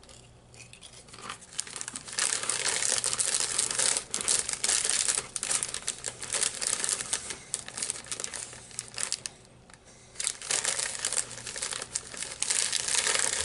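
Crisp packet crinkling and rustling as it is handled, in two long stretches with a short lull about three-quarters of the way through.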